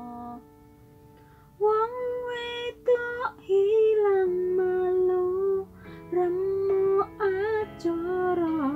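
Background song: a high voice singing a melody over a plucked-string accompaniment, with a brief quieter gap about a second in.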